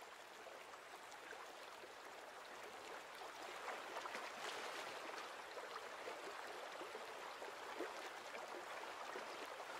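Faint rush and babble of a shallow river running over stones, a little louder from about three seconds in.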